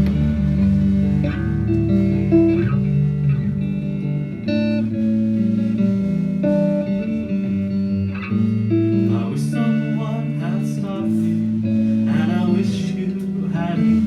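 Live band playing an instrumental passage of an indie song: guitar over bass guitar, with a deep low bass note that drops out about four seconds in.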